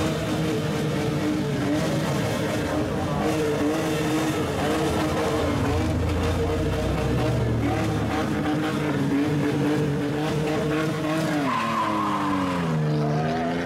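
Straight-piped exhaust of a lowered sedan held at raised revs, a steady note for most of the time, then the revs dropping and climbing again near the end.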